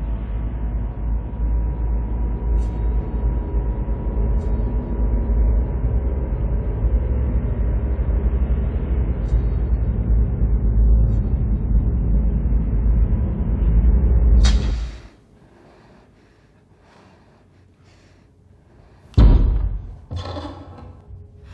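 Dramatic film sound design: a deep, steady rumble that cuts off suddenly about two-thirds of the way in, leaving a low hush. Near the end comes a loud, sharp thud with a ringing tail, and a few smaller knocks follow.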